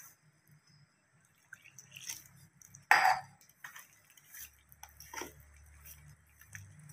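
Steel spoon scraping and knocking against a stainless steel bowl as wheat flour and water are stirred into a wet batter. The scrapes and knocks come at irregular intervals, and the loudest knock is about three seconds in.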